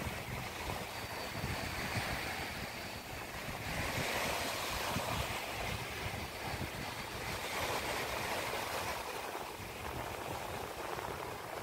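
Small waves washing up on a sandy beach, the surf rising and falling every few seconds, loudest about four to five seconds in. Wind buffets the microphone underneath with a low fluttering rumble.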